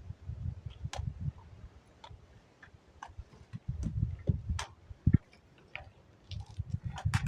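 Irregular clicks and knocks over frequent low thuds, with sharper knocks about a second in, in the middle and near the end.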